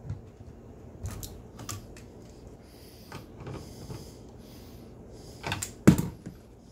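Tongue-and-groove pliers clicking and scraping on the brass hose fitting of a dishwasher's water feed line as it is loosened from the inlet valve. There are scattered light clicks, and two sharper knocks near the end.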